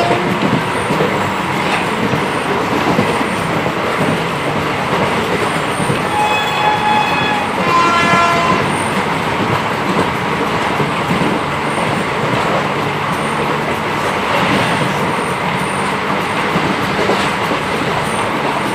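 Passenger train running along the track with a steady rumble and rattle of wheels and carriages. Two short horn blasts sound about six and eight seconds in.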